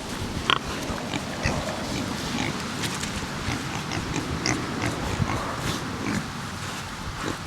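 Heritage pigs grunting at close range, with many short knocks and rustles throughout.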